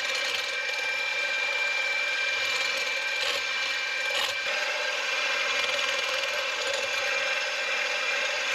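Electric mixer running steadily at a constant speed, its beaters whipping egg whites in a bowl.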